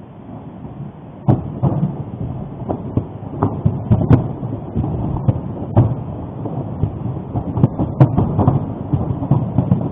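Volcanic eruption sound: a deep rumble that starts suddenly about a second in, with many sharp cracks and bangs over it.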